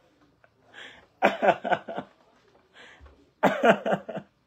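A man laughing in two bursts, one about a second in and one near the end, with breathy sounds between.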